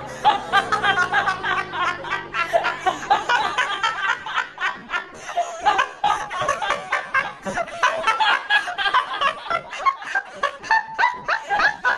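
Several people laughing hard, in rapid, choppy bursts of giggling and cackling. Background music fades out during the first few seconds.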